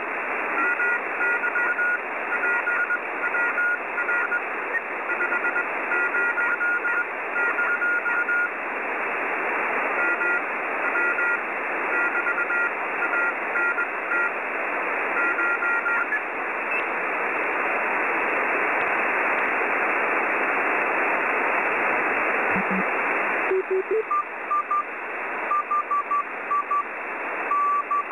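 Morse code (CW) received in SSB from the QO-100 satellite's narrowband transponder through a WebSDR: a keyed beep over steady receiver hiss. The keying stops for several seconds around the middle, leaving only hiss. After a brief tuning chirp, a lower-pitched CW signal keys on near the end.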